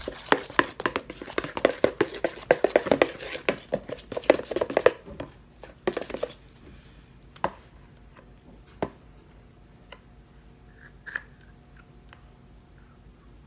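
A utensil stirring cake batter in a bowl to mix in red food colouring. Quick, repeated scrapes and clinks against the bowl run for about five seconds, with a short last flurry, then stop. A few single taps follow.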